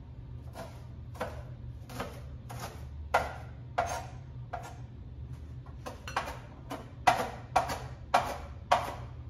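Chef's knife chopping cilantro on a wooden cutting board: steady knocks of the blade against the board, about one every half second or so, louder in the second half.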